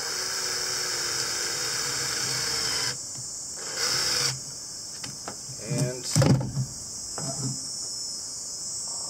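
Makita cordless drill spinning a socket to tighten a hose clamp on a coolant hose: one run of about three seconds, then a second short run about a second later. A louder brief sound follows around six seconds in, over a steady high chirring of insects.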